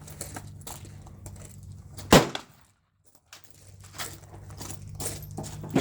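A single pistol shot about two seconds in, sharp and very loud, after which the sound drops out to silence for under a second before returning. A steady low hum runs underneath.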